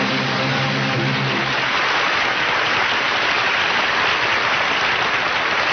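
Studio audience applauding steadily, with the band's held closing chord underneath that stops about a second and a half in.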